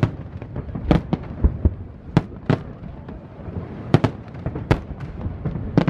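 Aerial fireworks shells bursting: a string of sharp bangs at irregular intervals, about nine in six seconds, some coming in quick pairs.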